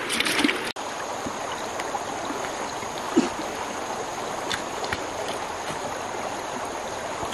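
Flowing river water rushing steadily over stones. In the first moment there is a brief splashing in a bucket of water, then the sound cuts off for an instant. After that come a few scattered clicks and knocks, the loudest about three seconds in.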